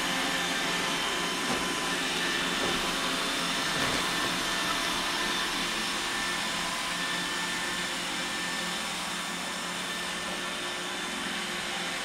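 iRobot Roomba 805 robot vacuum running as it drives across a hardwood floor: a steady whirring hiss with thin high whining tones from its motors.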